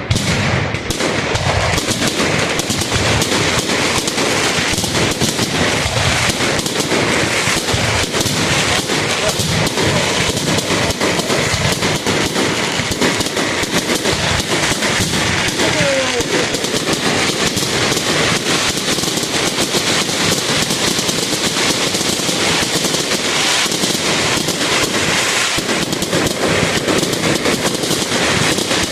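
Fireworks display going off in a dense, unbroken barrage, with rapid bangs and crackles many times a second.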